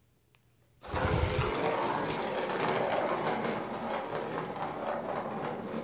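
A plastic ball rolling round the track of a circular cat scratcher toy: a continuous rattling rumble that starts about a second in with a dull thump.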